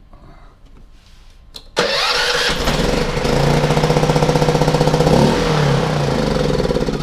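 Small petrol generator's engine starting on its electric starter about two seconds in. It catches and runs for about five seconds, wavers, then drops away near the end. It needed more choke: it was started with too little.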